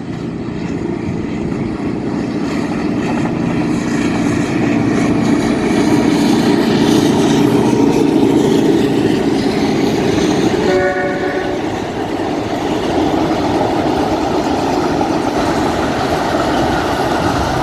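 A passing train, its rumble and wheel noise on the rails growing louder to a peak midway and then holding. About eleven seconds in, a short horn note sounds.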